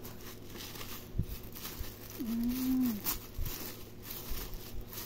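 Tissue paper and paper packing crinkling and rustling as a box is unwrapped by hand. About two seconds in, a short low steady tone, held for under a second, stands out louder than the rustling.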